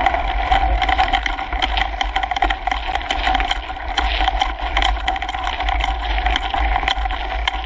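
Kona Coiler full-suspension mountain bike rolling down a gravel trail, picked up by a handlebar-mounted GoPro: tyres crunching over loose stones, with constant rattling and clicking from the bike and a heavy low rumble of wind and vibration on the camera.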